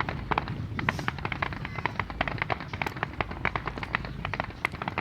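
Fireworks display: a rapid, irregular run of sharp cracks and pops, several a second, over a low rumble.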